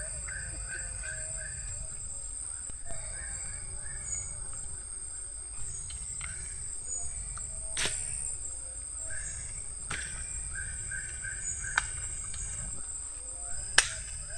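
Forest ambience: a steady high-pitched insect drone with bursts of short repeated chirping calls, over a low rumble. A few sharp knocks or taps stand out, about eight, ten and near fourteen seconds in, the last the loudest.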